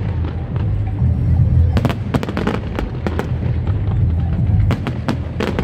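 Aerial fireworks bursting: clusters of rapid cracks and bangs, one about two seconds in and another near the end, over a steady low rumble.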